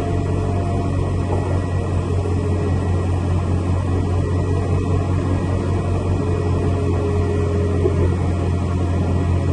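Steady low drone of an Airbus airliner running on the apron, with faint steady whining tones above it and no change in level.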